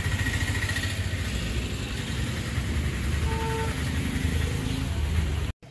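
A vehicle engine running steadily, with a brief beep about three seconds in. The sound cuts off suddenly near the end.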